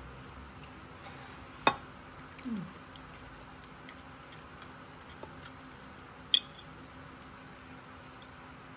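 Metal fork clinking twice against a ceramic plate while cutting into baked pasta, two sharp ticks about five seconds apart, with a brief low sliding sound shortly after the first.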